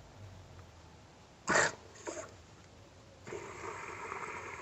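Water being poured into a car radiator's tank, a steady splashing pour that starts about three seconds in. Before it there is a short, sharp noise about one and a half seconds in, and a fainter one just after.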